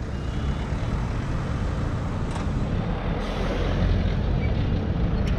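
Steady street traffic noise from a line of slow-moving cars, with a low rumble of wind buffeting the microphone as the bicycle rides past them.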